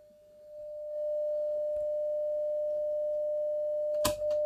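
Steady single-pitch test tone from a signal generator, played through the Telefunken Opus 8 tube radio's amplifier and loudspeaker, showing the audio amplifier stage is working. The tone dips almost to silence at the start, comes back up within about a second and holds steady, with a couple of sharp clicks near the end.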